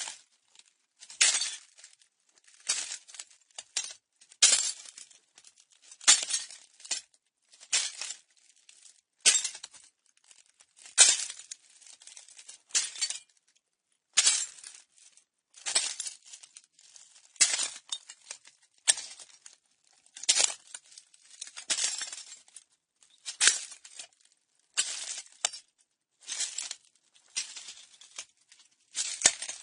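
Slow footsteps crunching and grinding over broken glass, one step about every second and a half, each with a crackle of shards shifting underfoot.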